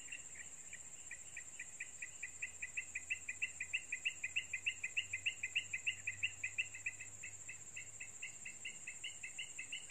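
Insects calling: a steady high-pitched drone with a rapid pulsing chirp, about five a second, that grows louder toward the middle and fades a little near the end.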